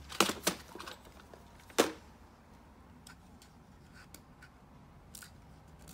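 A few sharp clicks and knocks of small objects being handled, the loudest a little under two seconds in, followed by fainter scattered light ticks.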